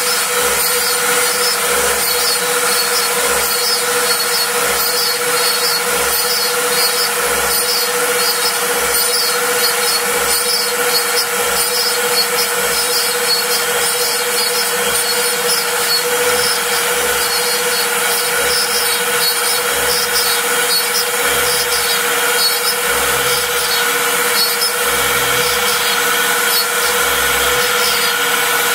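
Router on a Mostly Printed CNC (MPCNC) slotting MDF with a 1/8-inch bit: a steady motor whine over the rasping noise of the bit cutting through the board. Short low pulses come and go as the machine moves.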